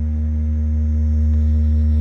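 Deep bass test tone played through a loudspeaker, held steady and getting slightly louder, with fainter pulsing overtones above it.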